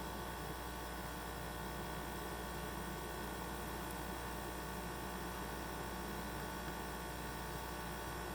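Samsung NI34T9102AD inverter compressor in a refrigerator, running with a steady hum made of several fine tones.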